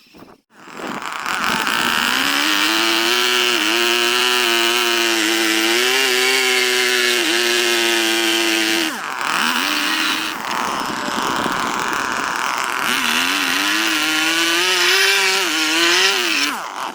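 Electric power tool motor running as it carves wood, its pitch wavering as it bites and eases off. It starts about a second in, drops and picks back up around the middle, and stops just before the end.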